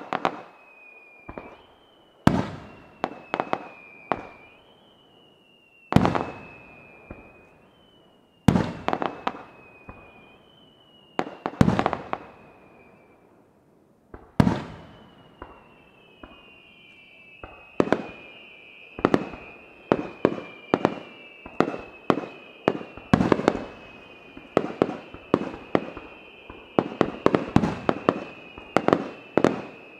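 Aerial firework shells bursting with sharp booms and crackle, several of them whistling, each whistle sinking slightly in pitch over about two seconds. In the first half single shells go off every few seconds; from about halfway the bursts come in quick succession, with several whistles overlapping.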